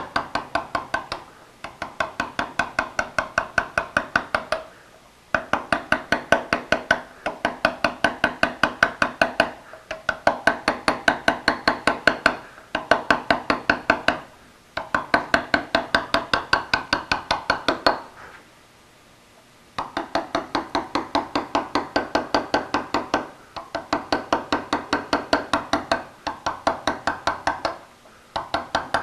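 Mallet tapping a letter-carving chisel into stone in quick, even strokes, about seven a second, in runs of a couple of seconds with brief pauses and one longer pause about two-thirds of the way through. Each stroke gives a short ringing knock.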